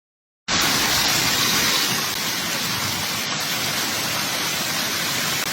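Heavy storm downpour pelting down steadily, a loud, dense hiss that cuts in suddenly about half a second in.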